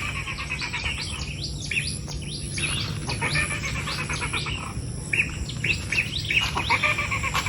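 A chorus of birds chirping, many quick downward-sweeping calls in clusters, over a thin steady high insect buzz that comes and goes.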